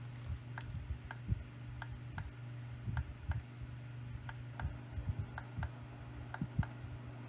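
Faint, irregular light clicks, about two a second, from the alarm clock's plastic buttons being pressed, over a steady low hum.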